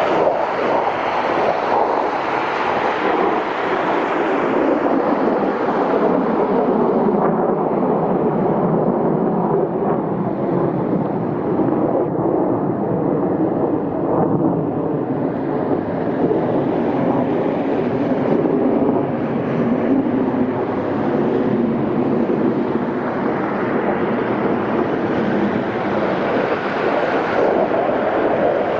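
Jet engine noise from Blue Angels F/A-18 Super Hornets flying a formation display: a loud, steady rumble whose hiss fades in the middle and grows back near the end as the jets come round again.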